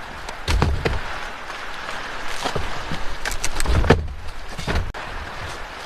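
Pieces of a makeshift bed frame being knocked and pushed into place by hand, as a series of irregular knocks and clatters over a steady background hiss.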